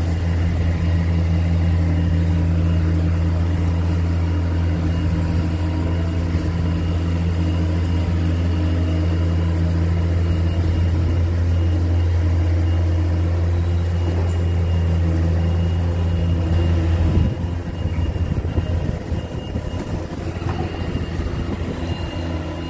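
A machine's engine or motor running with a steady, loud low hum. About seventeen seconds in, the hum stops and a rougher, uneven noise follows.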